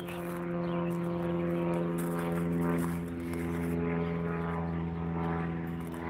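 A steady engine drone, holding one unchanging pitch throughout.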